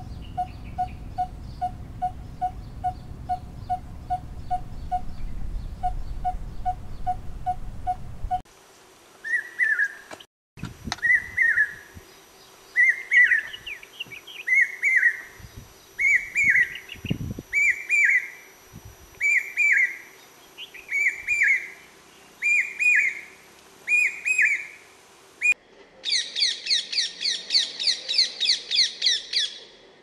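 Three different birds calling in turn. First comes a steady series of low, evenly spaced notes, about two or three a second. It cuts to a louder, higher call repeated about once a second, and near the end there is a fast run of high notes lasting about three seconds.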